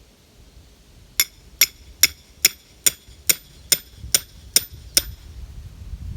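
A 3-pound mini sledgehammer striking a piece of rebar, driving it into the ground to make a hole for a corn stalk. There are ten sharp metal-on-metal blows, each with a high ring, at a steady pace of about two and a half a second, starting about a second in.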